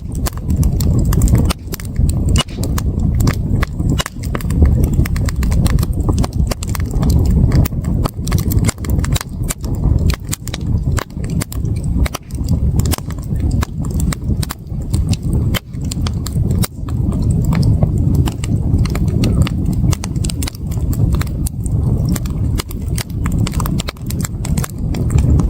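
Wood campfire crackling and popping, with dense, irregular snaps throughout over a steady low rushing sound.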